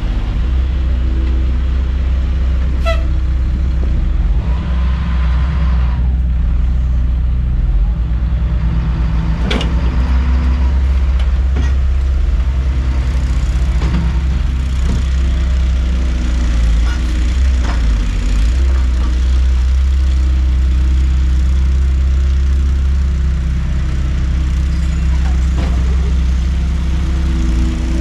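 Dump truck's engine running steadily, with a few knocks and clatters, the loudest about nine and a half seconds in.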